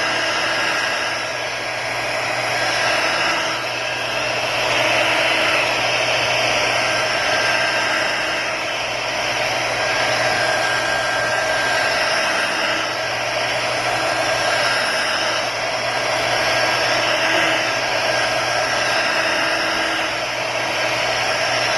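Heat gun blowing steadily, its air rush swelling and easing a little as it is moved around, warming the cracked glass to loosen the glue under it.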